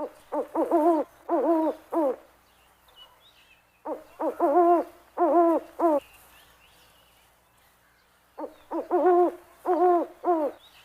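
An owl hooting in three runs of five or six quick hoots each, about two seconds apart, with faint high chirps in the gaps.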